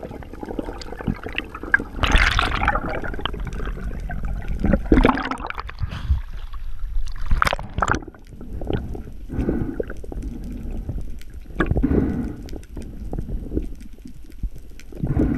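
Muffled water movement and gurgling heard through a submerged camera, with louder irregular surges every few seconds.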